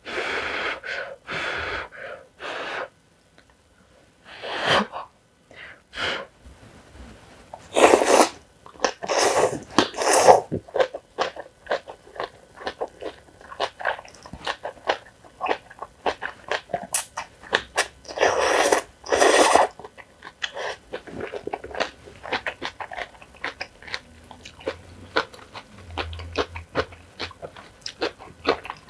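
Close-miked eating of jjajang instant noodles with kimchi: several long, loud slurps of noodles, grouped in the first ten seconds and again about two-thirds of the way through, with steady wet chewing and crunching between them.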